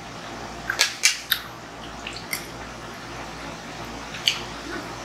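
Metal ladle clinking against the cooking pot and dipping into the broth as it is spooned over the fried fish: several sharp clinks, one about a second in and one near the end, with light liquid sounds.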